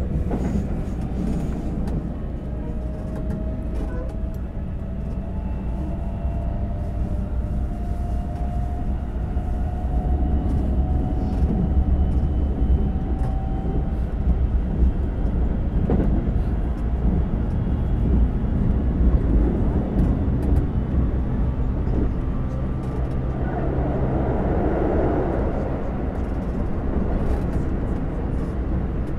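Keikyu 2100-series electric train running at speed, heard from inside the car: steady rumble of wheels on rails, with an electric motor whine that rises in pitch through the first half as the train accelerates. A brief swell of rushing noise comes about two-thirds of the way through.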